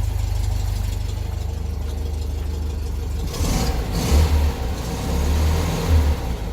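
1967 VW Beetle 1200's air-cooled flat-four engine idling as it warms up from a cold start. A few brief swells in the engine sound come in the second half.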